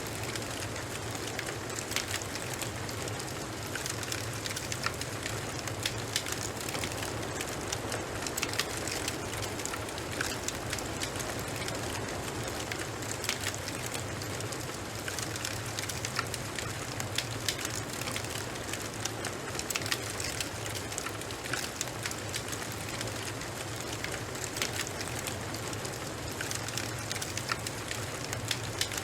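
Wood fire crackling: a steady hiss with frequent sharp pops and snaps over a low, steady rumble.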